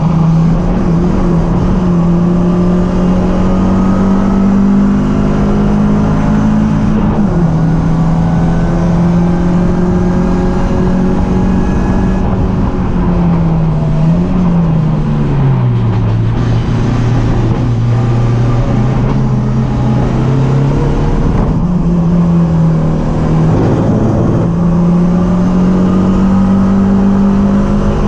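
BMW 318ti Cup race car's four-cylinder engine running hard at racing pace, the revs stepping up and down with gear changes. Midway the engine note drops low for a few seconds, then picks up again.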